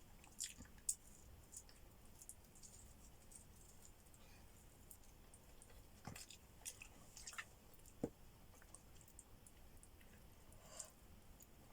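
Faint close-up eating sounds: a person chewing, with scattered soft mouth clicks and wet squishes.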